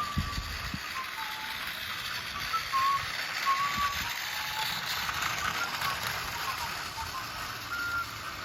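Battery-powered Tomy Plarail toy train running on plastic track: a steady whirring, rattling gearbox with small clicks, and a few brief squeaks.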